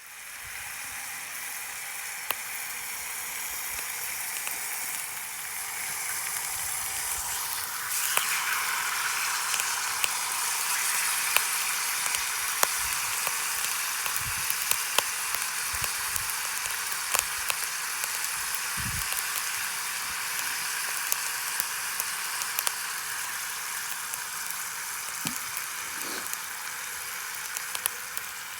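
Food sizzling in a pan: a steady frying hiss with scattered sharp pops, growing louder about eight seconds in.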